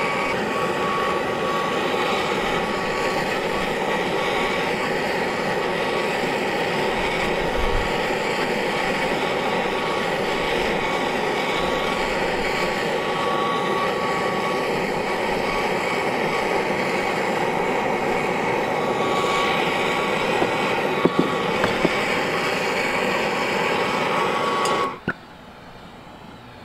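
Oxy-fuel torch flame burning steadily on a crucible of molten silver, shut off suddenly about 25 seconds in. A few light clicks come shortly before it cuts off.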